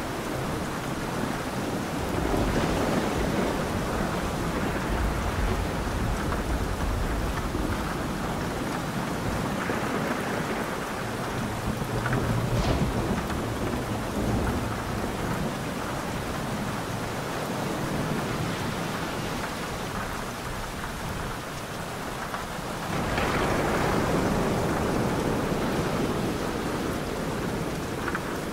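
Thunderstorm: steady heavy rain with low, rolling thunder rumbling on and off. A louder roll of thunder comes in sharply late on.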